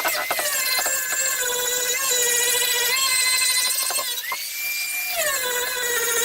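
Power grinder running with a steady high whine while grinding, with scraping clicks in the first second. About four seconds in, the pitch rises briefly as the tool spins up off the work, then drops back as it bears down again.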